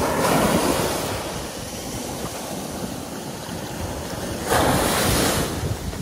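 Small ocean waves breaking and foaming surf washing up the beach at the water's edge. The surf hisses louder twice, once at the start and again about four and a half seconds in.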